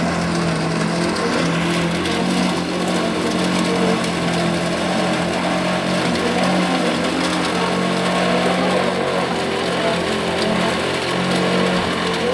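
Homemade chopper-grinder machine running with a steady hum, chopping dry grass stalks that are fed by hand into its round metal housing.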